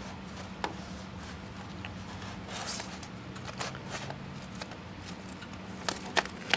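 Faint handling noises: a few scattered light clicks and taps over a low steady hum.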